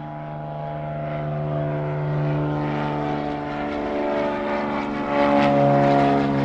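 Propeller airplane engine running with a steady drone, fading in and growing louder throughout.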